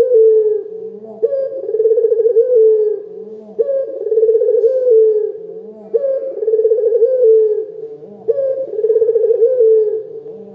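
Domestic ring-necked dove (Barbary dove) cooing over and over. Each call is a rising note that runs into a long trilled coo, repeated evenly about every two and a half seconds, four times.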